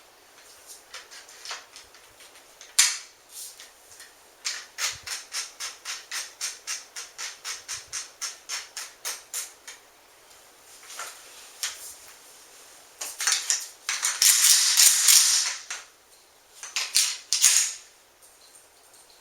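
Metal clicks and clatter of a Mossberg 500 pump shotgun's parts being fitted back together, including a run of evenly spaced clicks, about three or four a second, and a louder scraping rattle about two-thirds of the way through.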